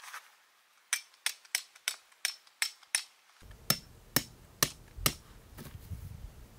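Hammer blows: seven quick sharp strikes at about three a second, then five more spaced a little wider, with a deeper thud to them.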